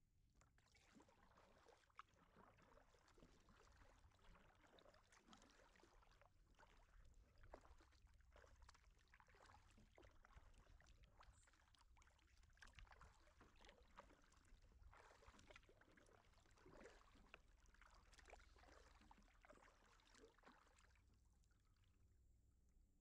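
Faint, repeated swishing of kayak paddle blades dipping and pulling through the water, stroke after stroke, stopping about two seconds before the end.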